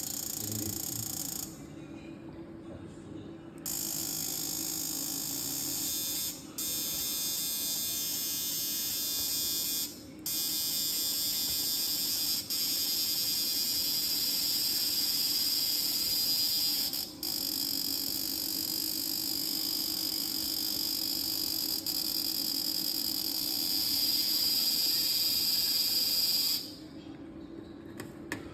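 FLW-268000W electrofishing inverter giving off a high-pitched electronic whine over a steady low hum. It cuts out and comes back several times: off for about two seconds near the start, brief drop-outs around six and ten seconds in, then a long run that stops near the end.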